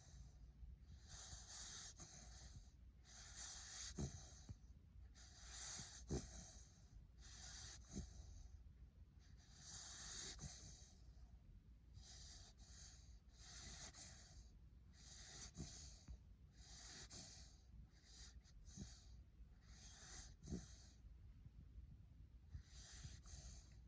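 Siberian husky puppy breathing faintly in its sleep, soft snoring breaths about every one and a half seconds, with a few short snorts.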